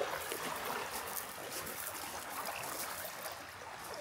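Water washing steadily at the shore, a soft, even rush.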